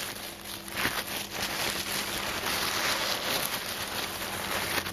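Plastic packaging crinkling as it is handled close to the microphone: a continuous dense crackle.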